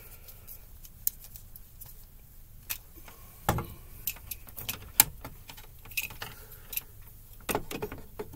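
Scattered metallic clicks, taps and clinks of tools and small electrical parts being handled, the sharpest click about five seconds in, with a quick run of handling noises near the end as hands work at the breaker in the panel.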